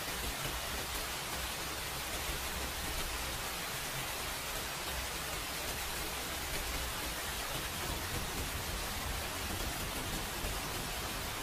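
A steady, even hiss with no separate events standing out of it.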